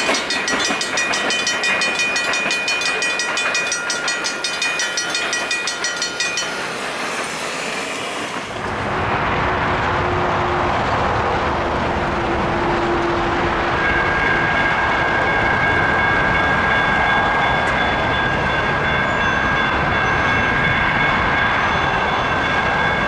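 A railroad crossing bell rings in rapid, even strokes over a passing train, and the bell stops about six seconds in. About eight seconds in the sound switches abruptly to a loud, steady rumble and rush of a train rolling through a crossing. A steady high tone joins it about halfway through.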